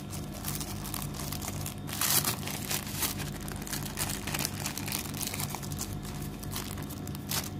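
Paper and plastic packaging crinkling and rustling as a wrapped charger pack is handled and lifted out of a cardboard box, in irregular bursts, loudest about two seconds in and again just before the end.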